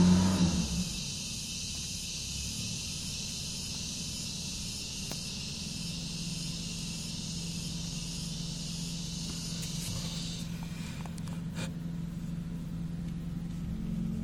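Steady background hiss over a low hum. The hiss cuts off about ten seconds in, leaving the hum and a few faint clicks.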